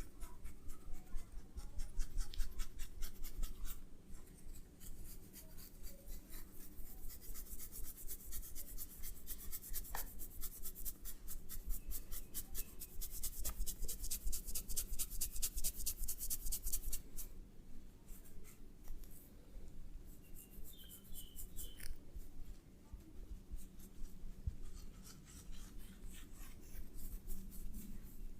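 Hands massaging in quick, even, dry rubbing and scratching strokes, heaviest in the middle of the stretch and thinning out near the end.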